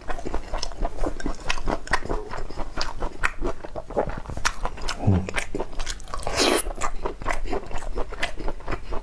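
A person chewing braised beef with the mouth close to a lapel microphone: a steady run of wet smacks and clicks from mouth and teeth, with a short low thud about five seconds in and a brief louder hiss a moment later.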